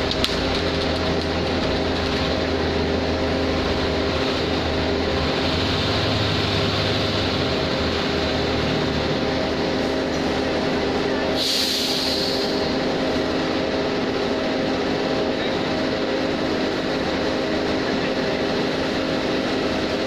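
Concrete mixer truck's diesel engine running steadily at low revs as the truck creeps forward. A short hiss of air cuts in about halfway through.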